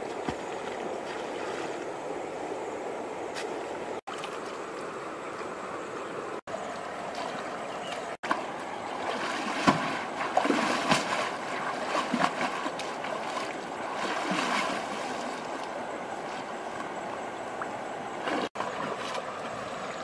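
Steady rush of river water, then irregular splashing and sloshing from about eight seconds in as a woven basket is dipped and worked through shallow water.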